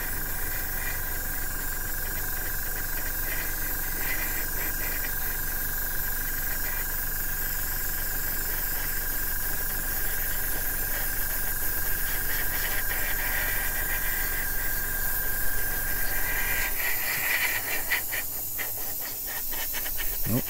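Airbrush hissing steadily as it sprays paint onto a plastic model, over a steady whine and low hum that cut out a few seconds before the end; after that the spray comes in short spurts.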